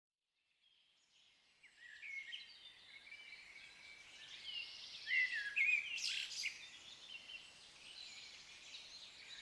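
Woodland birds chirping and calling, several short rising and falling notes overlapping, fading in at the start, with a brief sharp click about six seconds in.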